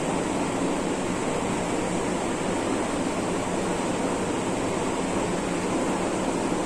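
Steady, even background hiss with no strokes or changes in level.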